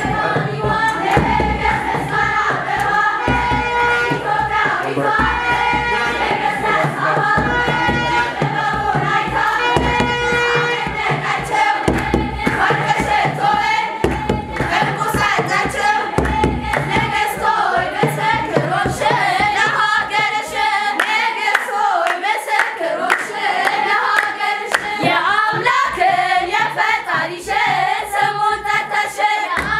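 A choir of young women singing an Ethiopian Orthodox hymn (mezmur) together, with hand clapping.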